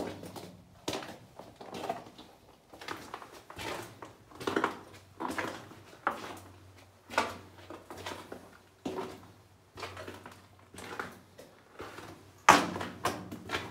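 Footsteps crunching and scuffing on the rocky floor of a mine tunnel, a step about every half to three-quarters of a second, with one louder scrape or knock near the end.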